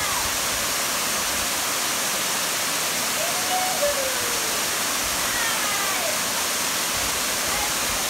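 Small waterfall pouring over rocks, a steady rushing, with faint voices calling out a few times over it.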